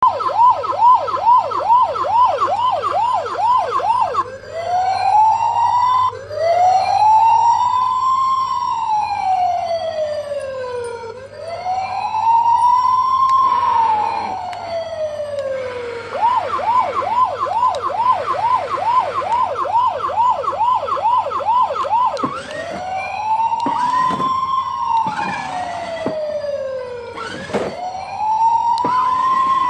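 Electronic police siren from a kids' ride-on toy car's speaker, switching between a fast yelp of about three warbles a second and a slow wail that rises and falls every few seconds. A few short clicks or knocks come in the last several seconds.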